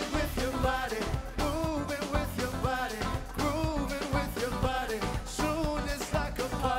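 Live band playing with a steady drum beat, and a singer holding sung notes over it.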